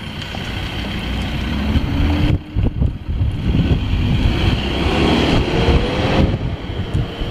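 Wind buffeting the microphone: a gusty low rumble with a hiss above it, easing off briefly twice, about two and a half and six seconds in.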